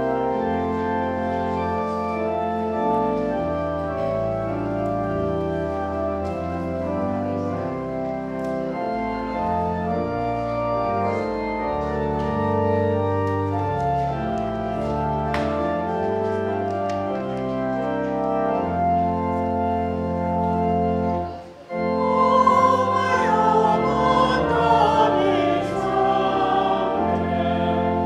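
Church organ playing slow, held chords that change every second or two. About 21 seconds in it breaks off briefly, then resumes with voices singing over it.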